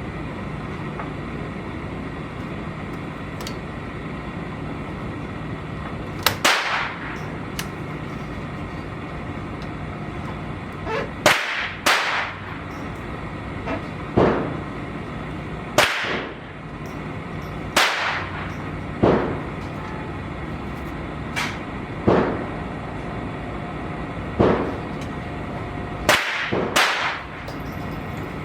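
Gunshots from several firearms on a shooting range, about a dozen sharp cracks at irregular intervals, some much louder and closer than others.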